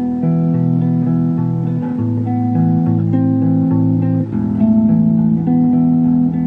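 Electric bass played fingerstyle in the upper register: a melody of held notes changing about every half second, with several notes ringing together like chords.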